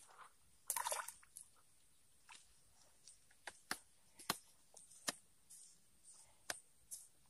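A brief splash about a second in as a small hooked fish is pulled out of the water on a pole and line, followed by scattered faint sharp ticks and drips while it dangles.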